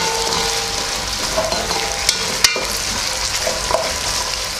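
Chicken liver and sliced carrots sizzling steadily in hot oil in a nonstick pot while a spatula stirs them. A few scrapes and clicks of the spatula against the pot come through, two sharp ones near the middle.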